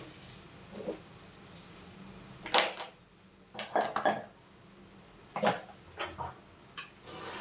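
Heavy dark bowl knocking and clattering against a tiled kitchen counter and sink as it is handled after washing and set down. A few sharp knocks come in small clusters, the loudest about two and a half seconds in.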